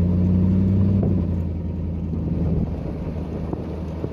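Engine of a small open-sided cart running as it drives along the road, a steady low hum that eases off partway through as the cart slows.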